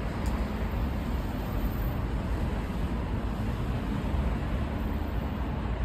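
Steady low outdoor rumble of road traffic, mixed with wind on the microphone.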